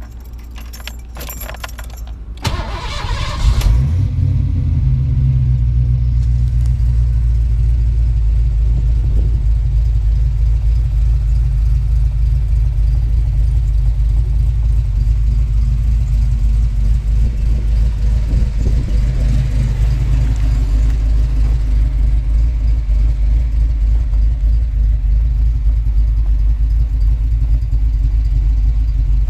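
1991 Ford Mustang 5.0's V8 engine being started: a few clicks, then it catches about two and a half seconds in with a brief flare and settles into a steady idle.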